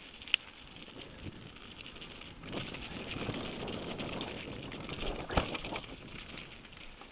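Mountain bike running fast down a loose gravel trail: tyres crunching over the stones and the bike rattling, louder in the middle and easing near the end, with two sharp knocks, about a third of a second in and again about five seconds in.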